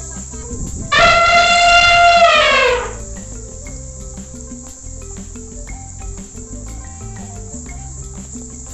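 Sumatran elephant trumpeting once, about a second in: a loud call of nearly two seconds that falls in pitch as it ends.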